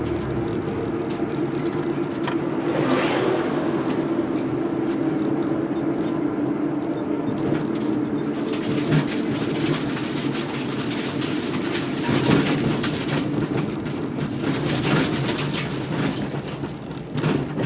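Car engine running steadily at a low, even speed, with a brief swell in pitch that rises and falls about three seconds in.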